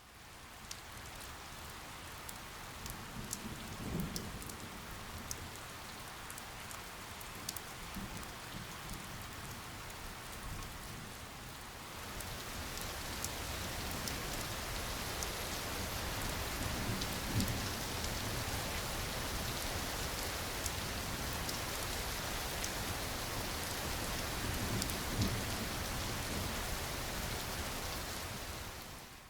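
Steady rain with crisp individual drop ticks and a few low rumbles of distant thunder; the rain grows heavier about twelve seconds in. It fades in at the start and fades out at the end.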